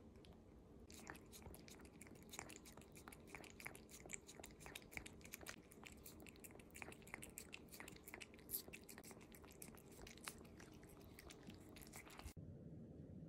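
A domestic cat licking paste from a CIAO lickable-treat tube: many faint, quick wet tongue clicks and smacks, stopping shortly before the end.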